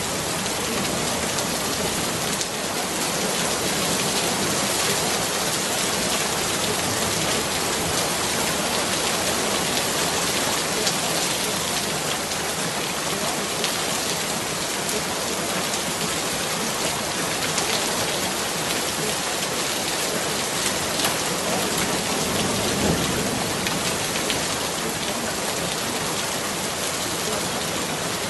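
Steady rain, an even hiss with scattered fine drop ticks and no change in level.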